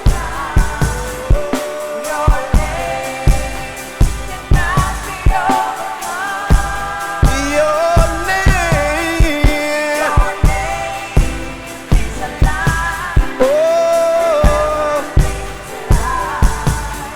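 Gospel worship music with a drum kit beating steadily under sustained, gliding vocal or keyboard lines.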